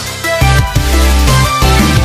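Loud background music with a heavy bass line and a steady beat.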